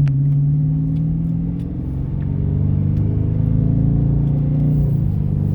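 Vehicle engine running at a steady low pitch with small shifts in speed, getting a little louder about halfway through.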